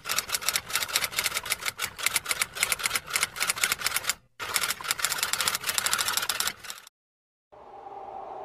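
Typewriter typing sound effect: a fast run of keystroke clicks, a brief break a little past four seconds, then more clicks that stop just before seven seconds. After a short silence, a steady hum begins near the end.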